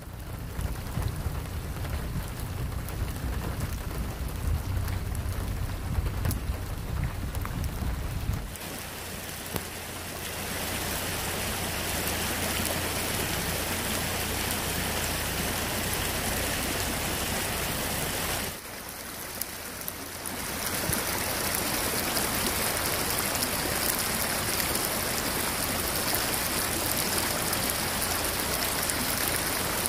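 Steady rain and muddy rainwater running down an asphalt road. A low rumble lies under the water sound for the first eight seconds or so, and the sound dips briefly about two-thirds of the way through.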